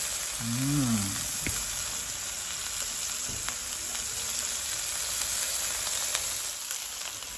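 Steak frying in hot oil in a metal roasting tray on a portable butane gas stove: a steady sizzle with the odd faint pop of spitting fat.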